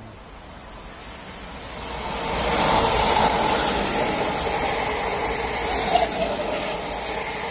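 An electric multiple-unit passenger train passing through at speed. Its running noise on the rails builds over the first few seconds and then stays loud as the coaches go by.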